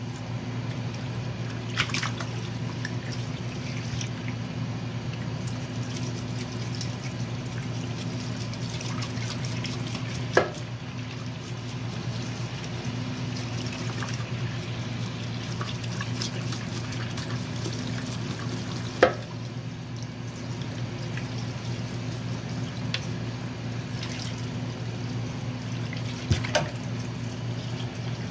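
Kitchen tap running steadily into a stainless-steel sink, splashing over fresh croakers as they are rinsed. A few short sharp knocks sound through it, about ten, nineteen and twenty-six seconds in.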